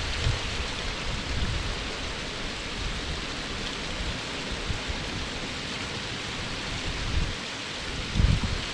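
Waterfall: the steady rush of falling water, with a few brief low rumbles, the loudest about eight seconds in.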